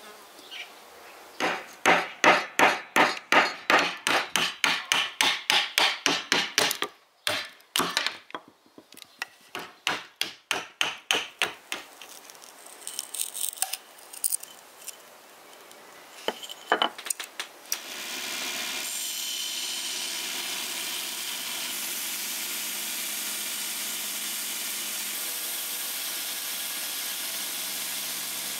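Rusty antique meat cleaver blade working into wood in quick, even strokes, about three or four a second, in two runs with a short pause between. A few single knocks follow, and then a power tool starts up and runs steadily.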